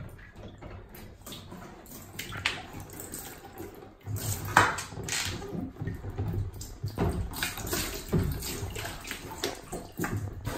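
Otter splashing and moving about in a plastic tub of water, the water sloshing irregularly, louder from about four seconds in, with one sharp splash soon after.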